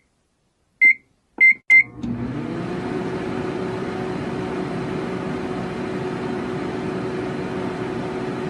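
Microwave oven: a few short keypad beeps, then the oven starts and runs with a steady hum.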